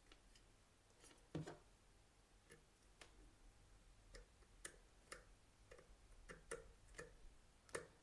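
Faint, irregular small clicks and ticks from a screwdriver working a screw in a ceiling fan's plastic terminal block as a wire is fastened.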